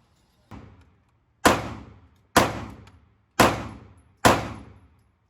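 Four pistol shots about a second apart, each fading out in a short echo, with a fainter bang about half a second in.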